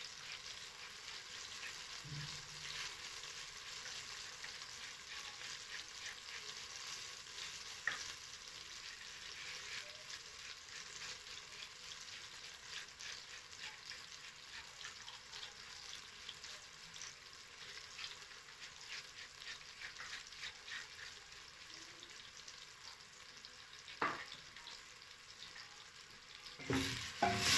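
Tomatoes frying in a pan, a steady sizzle and crackle, with a couple of sharp clicks along the way and louder stirring sounds near the end.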